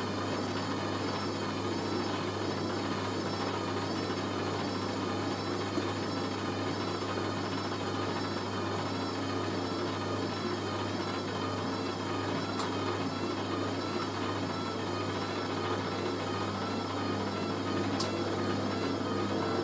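Hoover A3060 washing machine draining: a steady hum from the drain pump, running without any rattle, under a motor whine that wavers evenly up and down as the drum turns.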